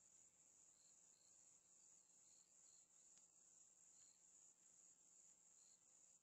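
Faint chorus of insects in woodland: a steady high-pitched trill with a slight pulsing, and a few short chirps now and then.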